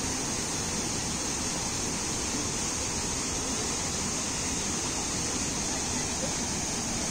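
Waterfall pouring over boulders and churning into foaming white water below: a steady, even rush of water.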